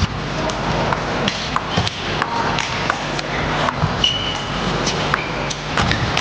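Celluloid table tennis ball being struck back and forth in a fast rally: a string of sharp, irregular clicks off rubber paddles and the table, over the steady hum of an arena crowd. A short high squeak comes about four seconds in.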